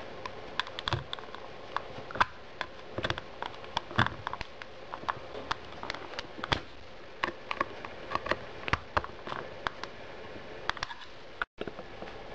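A flat-blade screwdriver prying open the plastic shell of a Siemens Gigaset cordless phone handset along its seam: many irregular sharp clicks and snaps of plastic.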